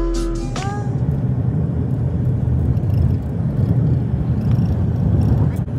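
Steady road and engine noise heard from inside a moving car, a low, even rumble. Background music cuts off under a second in.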